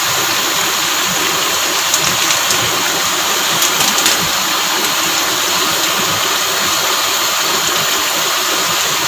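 Chicken pieces sizzling as they fry in oil in a pot: a steady hiss with a few faint clicks.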